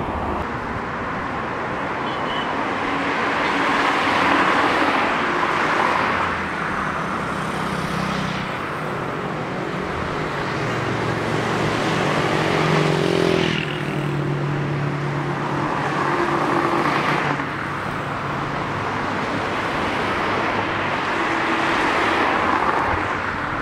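Busy road traffic: cars and motorbikes passing one after another, swelling and fading every few seconds. About halfway through, a motorbike's engine note rises as it passes, then drops away suddenly.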